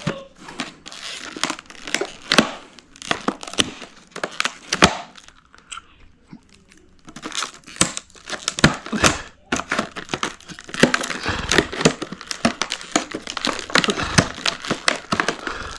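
Packaging being handled and torn open: crinkling and tearing with many small irregular clicks and crackles, easing off briefly in the middle.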